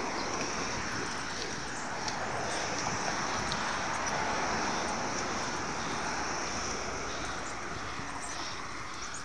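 Steady rush of wind over the microphone of a phone filming from a moving bicycle, mixed with the noise of city street traffic.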